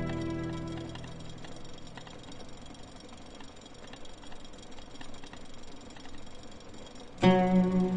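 Background music dies away in the first second, leaving faint light ticks and rustles of hands working at a kitchen counter. Loud plucked-string music starts near the end.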